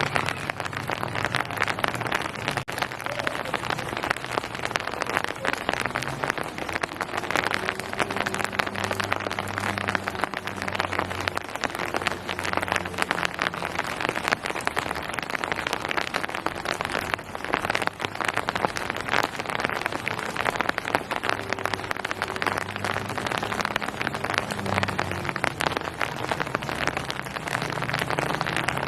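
Steady rain falling on surfaces, a dense pitter-patter of many drops, with a faint low hum underneath.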